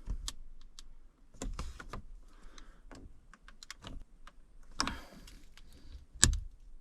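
Irregular hard-plastic clicks and taps as truck console trim pieces are handled and pried with a plastic trim tool, with one louder knock near the end.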